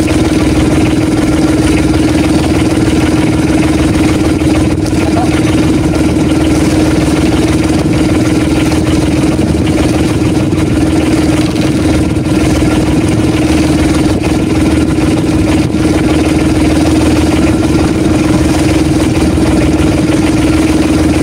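Outrigger fishing boat's engine running steadily at constant speed, a loud even drone that holds one pitch throughout.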